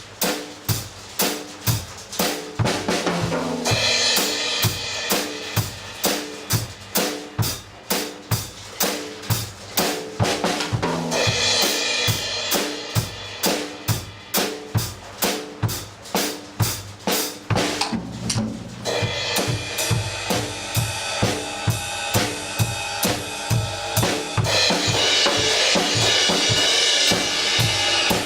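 Drum kit played on its own in a steady beat, kick and snare strokes about twice a second. Long stretches of cymbal wash run over the beat after the first few seconds.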